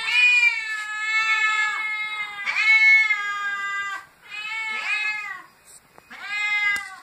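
Orange tabby domestic cat meowing loudly in a series of about four long, drawn-out meows with short gaps between them, begging for the food held out to it.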